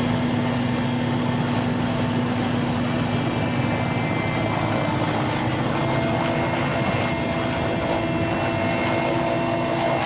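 Helicopter in flight heard from inside the cabin: a loud, steady rush of engine and rotor noise with a humming tone that shifts slightly higher about halfway through.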